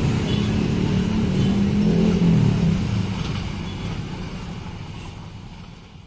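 Low, steady rumble of vehicles, with a faint hum in it, fading out over the last three seconds.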